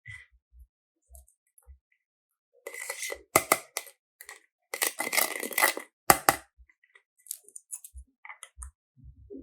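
Small hard objects being handled: scattered light clicks and taps, with two louder spells of rustling and scraping about three and five seconds in, each with a sharp clack.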